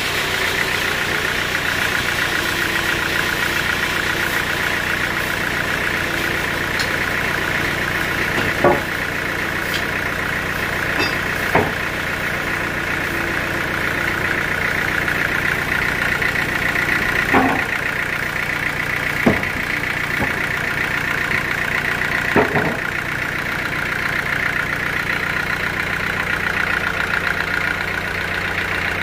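Band sawmill running steadily without cutting, a constant low hum with a higher whine over it. About five sharp knocks of wood being handled stand out over the machine sound.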